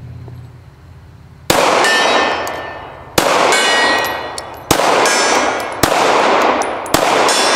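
Five 9mm pistol shots from a Glock 19, the first about a second and a half in and then roughly one every second and a half. Each is followed by the ringing clang of a hit steel target.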